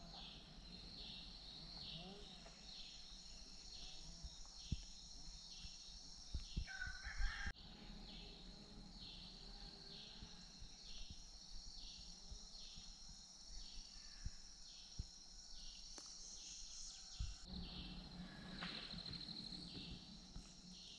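Insects chirping in a steady pulsing chorus, about two pulses a second, with a rooster crowing once about seven seconds in.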